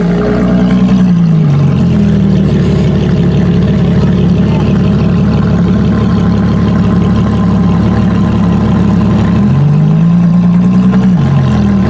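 Ferrari LaFerrari Aperta's 6.3-litre V12 running at low revs. Its pitch drops about a second in, holds steady, then rises and falls again about ten seconds in.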